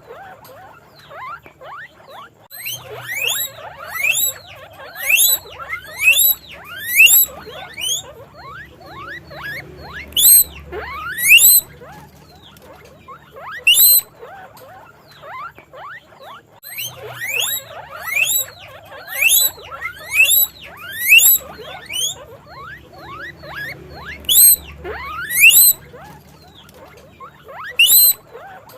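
Guinea pigs wheeking: short, loud squeals that sweep sharply upward, coming in quick runs of several a second with pauses between runs.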